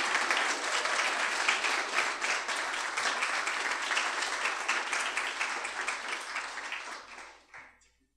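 Audience applauding, a steady patter of many hands clapping that thins out and dies away about seven seconds in.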